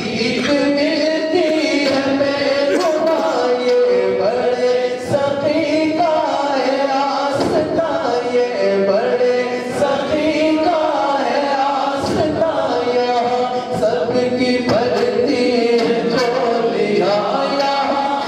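A man singing a naat, an Islamic devotional poem, in long sliding melodic phrases into a handheld microphone.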